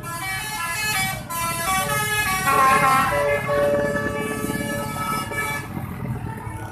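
Musical vehicle horn of the 'telolet' kind playing a tune of stepped notes as vehicles pass, fading away near the end.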